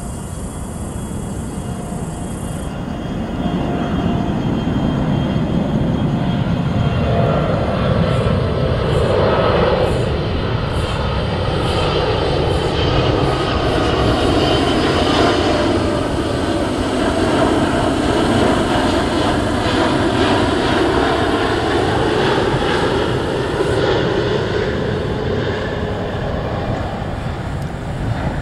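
Boeing 777-300ER's twin GE90-115B turbofans on final approach, passing close by: a loud, steady jet roar that swells about three seconds in and holds.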